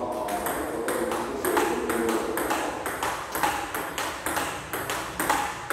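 Table-tennis rally: the ball clicking off the rackets, one of them faced with pimpled rubber, and bouncing on the table in a steady rhythm of about three to four hits a second.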